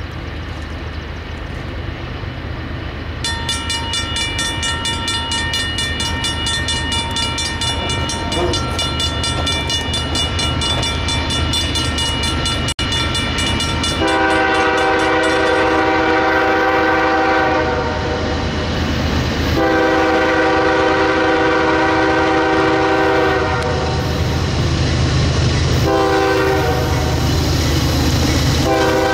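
Diesel freight locomotives rumbling as the train approaches, with a steady high whine through the first half. The locomotive horn then sounds two long blasts, a shorter one, and another beginning near the end.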